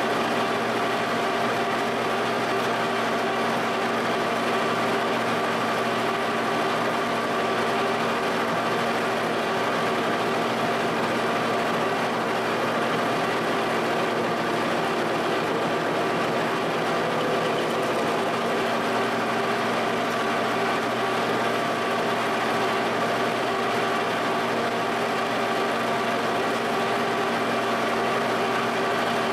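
Giddings & Lewis horizontal boring mill running, its spindle turning an end mill that cuts a clearance notch into a camshaft so stroker-crank connecting rods can clear it. A steady machine hum carries several constant whining tones.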